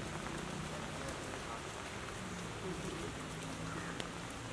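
Steady rain falling on wet pavement, an even hiss with one sharp click about four seconds in.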